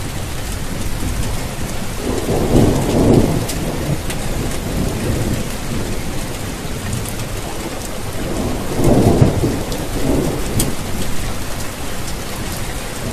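Steady heavy rain, with thunder rumbling twice: about two seconds in, and again around nine seconds in.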